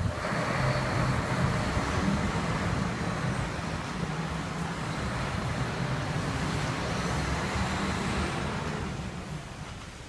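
Concrete mixer truck's diesel engine running as it pulls away, a steady low rumble that eases off slightly near the end.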